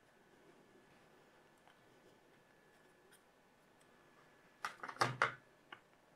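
Near-quiet room tone, then about four and a half seconds in a short cluster of light clicks and knocks, with one dull tap among them, from small parts of the opened tablet being handled; one faint click follows.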